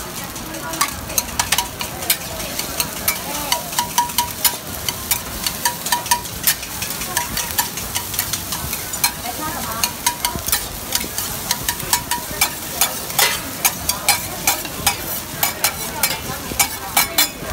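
Metal spatulas chopping and scraping rice on a hot flat-top griddle: quick, irregular metal clacks, a few a second, starting about a second in, over a steady sizzle.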